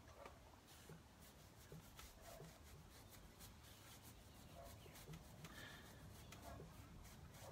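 Faint, repeated scratchy rubbing of a paintbrush working clay paint into the surface of a dresser.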